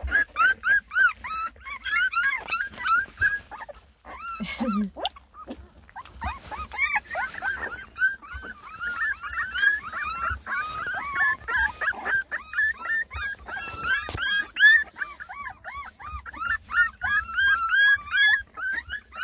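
A litter of young beagle puppies whining and whimpering, many short high cries overlapping one another, with a brief lull about four seconds in.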